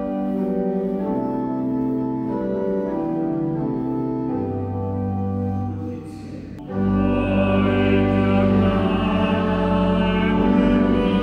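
1968 Tamburini church pipe organ playing slow sustained chords. About two-thirds of the way through, after a brief dip, it comes in louder and fuller, with a deep bass underneath.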